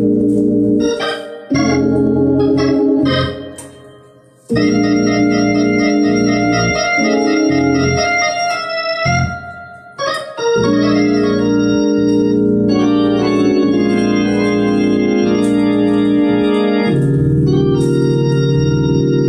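Hammond console organ played in held chords and short phrases, with a run of quick repeated chords and brief pauses about four and ten seconds in. A lower bass line comes in near the end.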